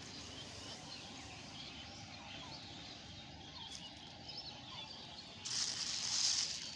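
Small birds chirping throughout, and about five and a half seconds in, a loud crinkling rustle lasting about a second as a piece of old plastic litter is picked up.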